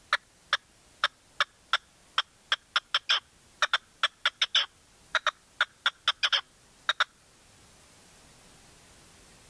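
Caged decoy red-legged partridge calling: a fast run of short, sharp notes, about three a second, that stops about seven seconds in.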